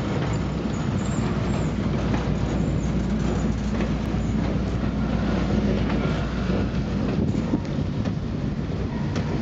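Freight train of loaded flatcars rolling past on yard track: a steady rumble of steel wheels on rail with a low drone underneath and a few scattered clicks from the wheels.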